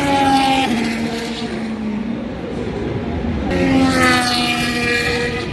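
Formula 1 cars' turbocharged V6 hybrid engines passing at speed: one at the start, its note dropping, and another arriving about three and a half seconds in, its pitch falling as it goes by.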